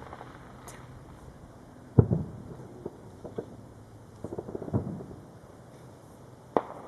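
Distant fireworks: a sharp boom about two seconds in, a cluster of smaller pops and crackles near the middle, and another sharp bang near the end.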